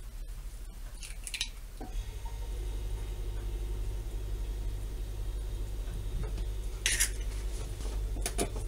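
An egg cracked on the rim of a stainless steel mixing bowl about a second in, followed later by a short clatter and a few light clicks of kitchenware near the end as a wooden spoon is taken up at the bowl. A steady low hum runs underneath from about two seconds in.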